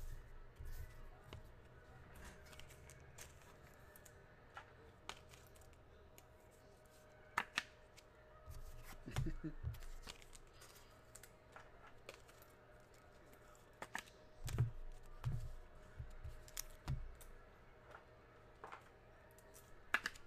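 Scattered clicks and taps of a computer mouse and keyboard, quiet and irregular, with a few low thumps in the second half.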